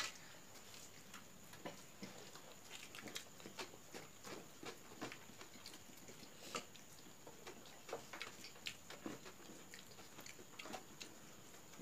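Faint eating sounds: chewing and biting into boiled eggs, with irregular small clicks and ticks as fingers mix rice and curry on steel plates.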